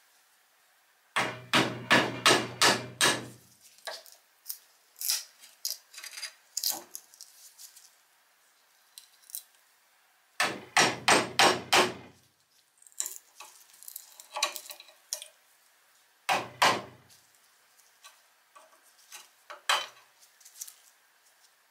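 Runs of quick metal taps, about four a second, as a screwdriver is knocked against a rusty axe head clamped in a bench vise, chipping out the old rotten wood; three runs, each with a low knock under it, and scattered single clicks and scrapes between.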